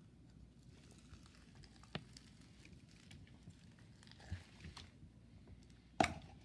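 Quiet handling of a plastic slime container: faint clicks and taps, a sharper click about two seconds in, and a loud click or pop near the end.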